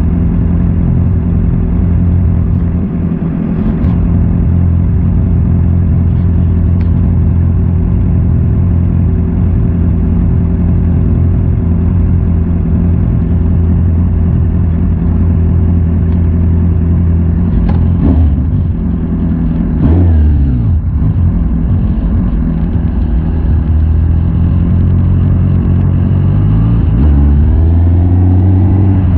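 Honda CB650R's inline-four engine idling steadily, then revved up and down a couple of times about eighteen to twenty seconds in, and rising in pitch as the bike accelerates away near the end.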